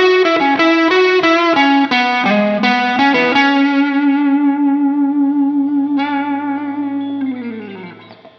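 PRS Silver Sky electric guitar played overdriven through a Marshall Silver Jubilee amp: a quick descending run of notes, then one long held note with vibrato that fades and slides down in pitch near the end.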